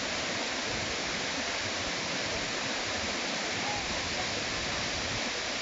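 Shiraito Falls: water pouring and splashing down the falls in a steady, unbroken rush.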